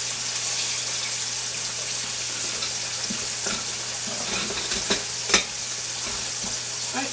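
Flour-dredged pork chops frying in hot oil in a skillet: a steady sizzle. A couple of sharp clicks come about five seconds in, and the second is the louder.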